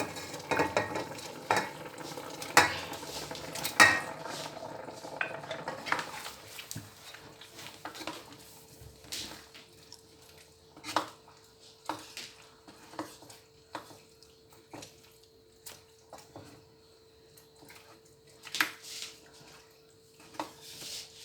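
A spoon stirring beef, cow skin and tripe together in a cooking pot, clinking and scraping against the pot. The clatter is busy for the first several seconds, then thins to separate knocks about once a second.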